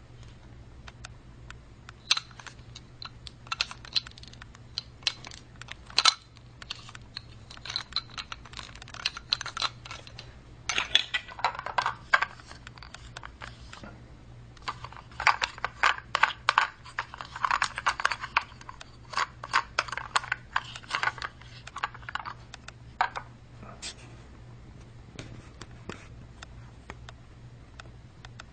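Hard plastic toy train set pieces clicking and clattering as they are handled, in irregular runs of small taps that get busier about a third of the way in and again around the middle.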